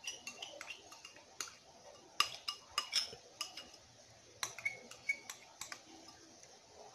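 Metal spoon scraping cream out of a small carton and clinking against a stainless steel saucepan: a string of light, irregular clinks and taps.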